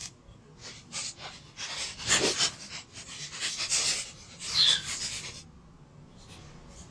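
A person's breathing, with sharp sniffs and gasps through the nose during a nasal swab test. They come in several short bursts, the loudest about two seconds and about four and a half seconds in, and it quietens over the last second or so.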